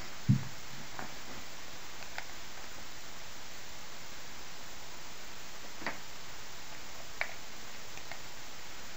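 Computer mouse clicks over a steady hiss. A low thump comes just after the start, then about five short, sharp single clicks spaced a second or more apart.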